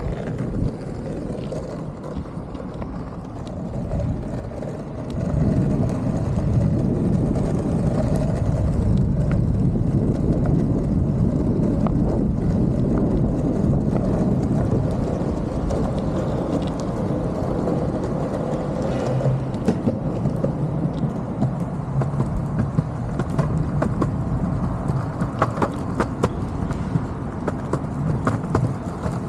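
Bustin longboard's wheels rolling over pavement, a steady low rumble that gets louder about five seconds in, with scattered sharp clicks in the later part.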